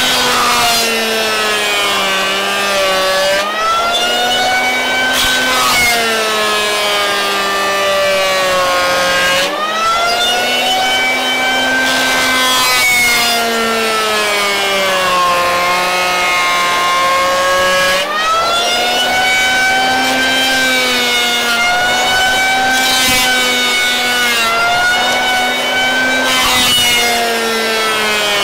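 Triton 180 mm electric hand planer running and cutting hardwood in repeated passes: the motor's whine sags in pitch as the blades bite in and rises again between passes, several times, with a rough shaving noise during each cut.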